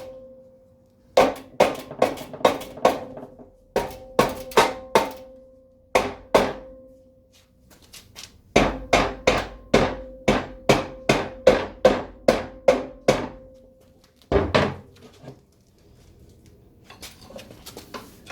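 Rubber mallet tapping a Classic Mini rear brake drum, in bursts of quick strikes with the steel drum ringing after each one, to break the rust between the brake shoes and the inside of the drum free. It ends with a longer run of about a dozen taps and one heavier knock.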